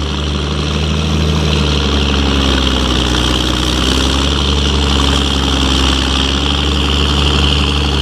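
Ford TW25 tractor's turbocharged six-cylinder diesel running steadily under heavy load while pulling a mounted plough through wet, heavy ground; it is purring along, pulling nicely, with a slight dip and recovery in engine pitch midway.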